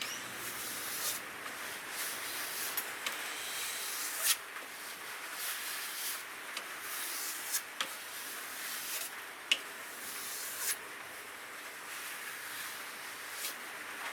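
Kitchen knife edge being stroked back and forth on a vinyl strop dressed with Brasso, a repeated rubbing swish about once a second with a few sharp clicks. This is the final polish that takes off the fine burr left by the whetstone.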